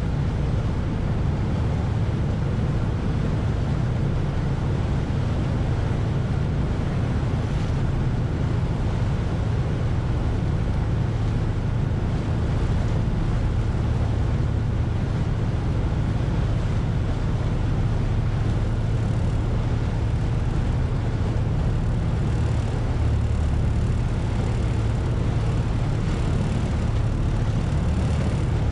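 Ferry engine running steadily under way, a low, even drone, with a haze of water and wind noise over it.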